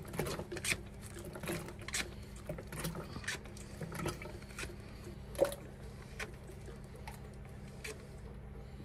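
Hand-operated pump sucking used engine oil out of a Volvo D2-55 marine diesel through a hose into a plastic bottle: irregular small clicks and taps, about one or two a second, over a steady low hum.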